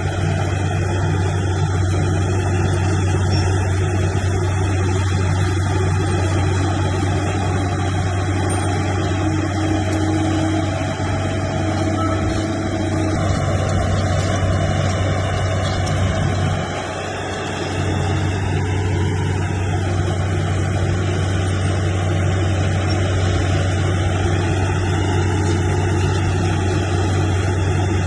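Heavy earthmoving machine's diesel engine running steadily under load, with a deep steady hum and a brief dip in level about 17 seconds in.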